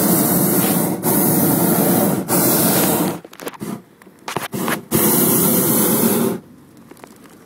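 Hot-air balloon propane burner firing: a long blast of about three seconds, a few short bursts, then a second blast of about a second and a half that cuts off near the end.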